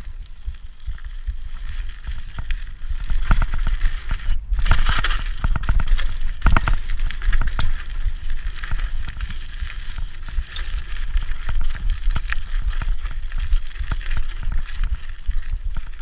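Rigid 1990 Peugeot Hurricane mountain bike ridden fast down a dirt trail: its Michelin Wild Gripper tyres crunching over dirt and leaf litter and the unsuspended bike rattling and knocking over bumps, over a steady low wind rumble on the microphone. The knocks are heaviest from about three to eight seconds in.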